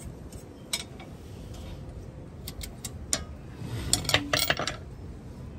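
Metal hand tools clinking and tapping against a truck's front brake hardware: scattered single clicks, then a quick cluster of clinks about four seconds in.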